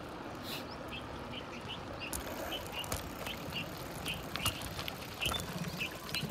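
Bicycle rolling over a rough road, with a steady noise of tyres and wind. Over it runs a short, high squeak or chirp that repeats evenly, about two to three times a second.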